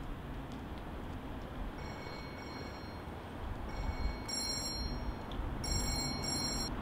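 Mobile phone ringtone: high electronic tones sounding in short on-off bursts from about two seconds in, over a low steady street rumble.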